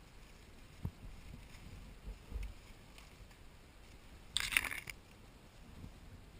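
An airsoft player on the move: scattered soft low thumps and one loud half-second scraping rustle about two-thirds of the way in.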